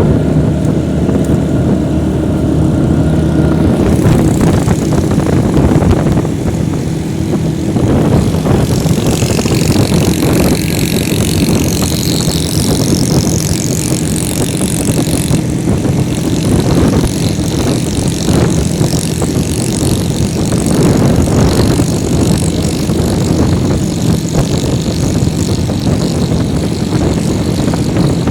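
Motorcycle engine running steadily while riding, with wind rushing over the microphone. A high hiss swells for several seconds about a third of the way in.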